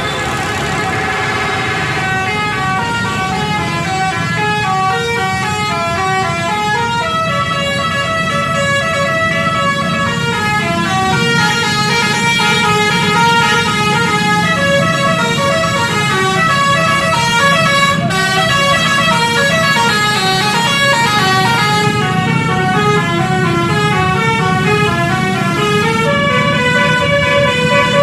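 Basuri telolet bus horn, a multi-tone musical air horn, playing a fast, continuous melody of short stepped notes over a steady low rumble.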